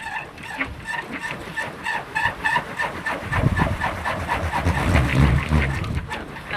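Suren-wood kolecer, a Sundanese wind propeller, spinning in the wind and whirring with a fast, even pulsing. Wind gusts rumble on the microphone from about halfway through.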